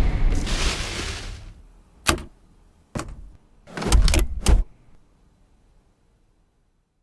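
A short rushing noise of about a second and a half, then a single click about two seconds in, another about three seconds in, and a quick cluster of knocks around four seconds in.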